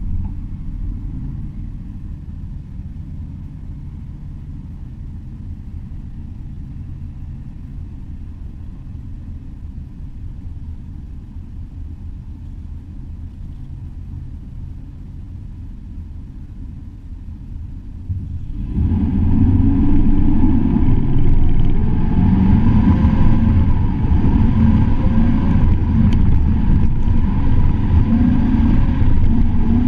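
Truck engine heard through a hood-mounted camera: a steady low idle rumble, then about 18 seconds in the truck pulls away and the engine gets much louder, its pitch rising and falling as it accelerates along a dirt track.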